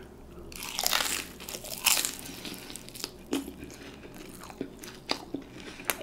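Biting into a crispy beer-battered onion ring: a loud crunch about a second in and another just before two seconds, then chewing with scattered crisp crackles.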